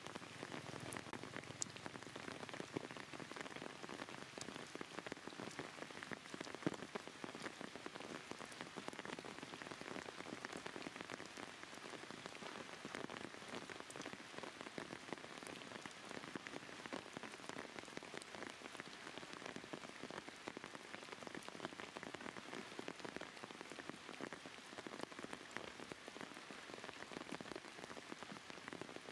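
Steady rain falling on surfaces: an even hiss with many small drop impacts ticking through it.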